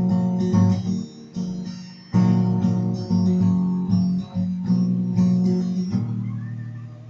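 Music: an acoustic guitar strumming chords with no singing. A chord is struck about once a second and rings out before the next.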